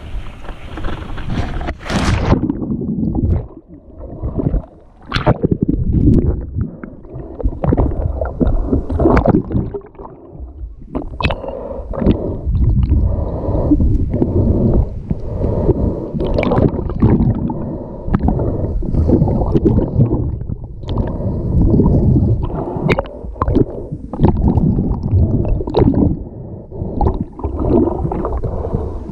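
Pool water heard underwater: continuous muffled gurgling and sloshing, broken every few seconds by brief sharp splashes.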